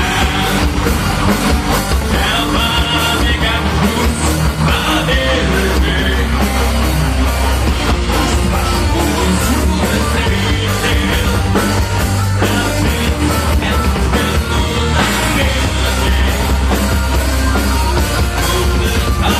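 A heavy metal band playing live, loud and continuous.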